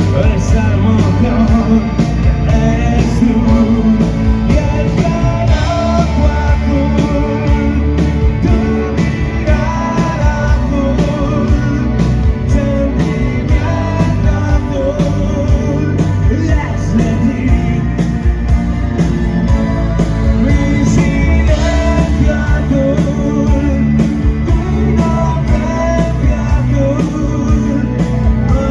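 Rock band playing at full volume: a steady drum beat, bass and guitars, with singing over them.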